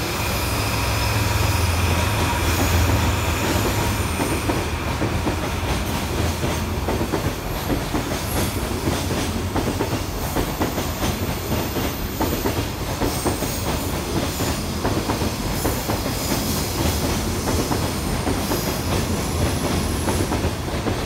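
A JNR DD51 diesel-hydraulic locomotive hauling a freight train passes. Its twin diesel engines give a low rumble for the first few seconds, then the container wagons roll by with a steady, rapid clatter of wheels over the rail joints, and a faint high wheel whine comes early on.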